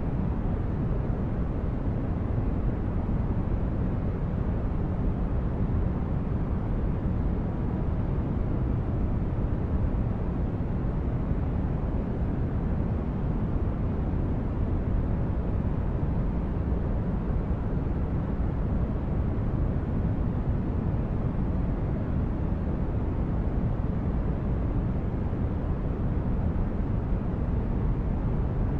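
Steady, unchanging noise for sleep and relaxation, a deep even rush heaviest in the bass with little hiss up top.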